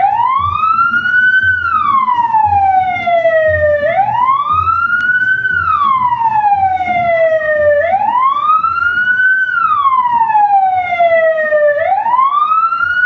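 Police-vehicle siren in a slow wail: each cycle rises for about a second and a half, then falls for about two and a half seconds. It repeats about every four seconds, with three full cycles and the start of a fourth.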